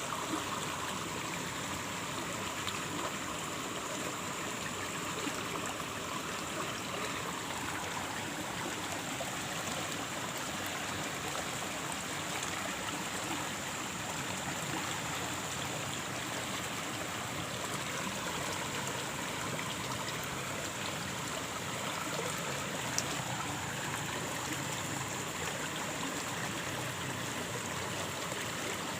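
Stream water flowing steadily, with one brief faint click a little past two-thirds of the way through.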